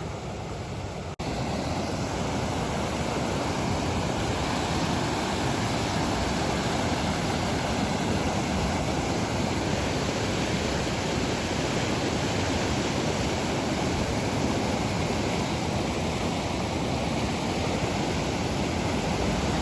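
Floodwater rushing steadily down a swollen stream in spate after a day of rain, growing abruptly louder about a second in.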